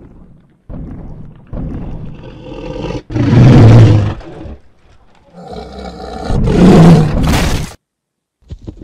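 Tyrannosaurus rex roar sound effect: low growling that breaks into two loud, deep roars, the first about three seconds in and the second about six and a half seconds in.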